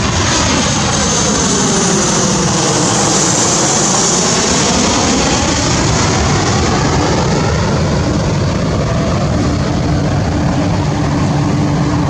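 Boeing 737 twin-jet airliner on final approach passing low overhead: loud, steady jet engine noise with a phasing sweep that falls to its lowest about three to four seconds in and rises again as the plane goes over. A thin high whine peaks as it passes, and a steady low hum comes in near the end as it moves away.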